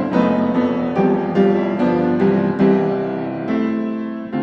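Background piano music, notes struck in an even rhythm about every half second and left to ring.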